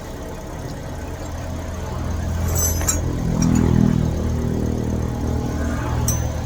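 Car engine idling with a steady low hum that grows louder for a second or two about three and a half seconds in. A few light clicks sound over it.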